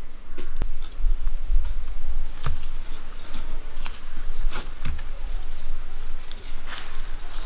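Steamed vayana leaf wrappers rustling and crinkling as hands pick up and arrange the rolled appams, in scattered short crackles with a few light knocks.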